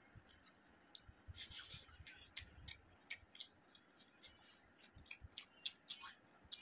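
Eating sounds picked up close: fingers mixing rice, then biting into and chewing a boiled egg, heard as a string of soft clicks with a brief rustling hiss about a second and a half in.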